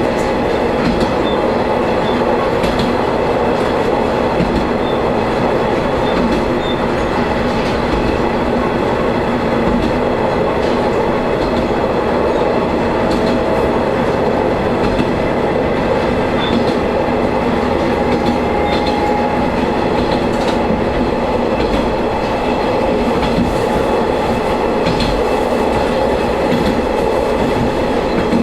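Shigaraki Kohgen Railway diesel railcar running steadily along the line, heard from inside the cab: a continuous engine drone and rolling wheel noise, with occasional clicks from the rails.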